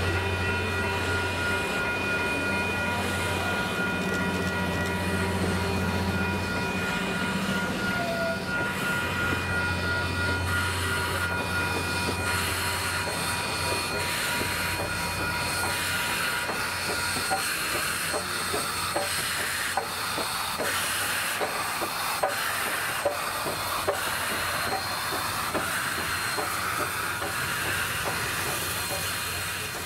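A steam train rolling slowly past: the passenger cars go by first with a steady high wheel squeal and a low hum, then the 2-8-0 steam locomotive 1702 and its tender pass with hissing steam and a run of sharp wheel clicks about once a second.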